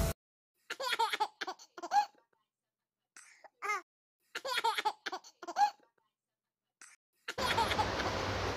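High-pitched laughter in several short bursts with dead silence between them, as an added laugh sound effect would be. About a second before the end, a steady rushing noise cuts in.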